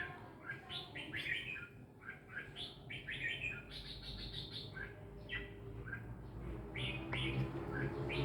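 Small birds chirping, a busy stream of short, quick chirps several times a second.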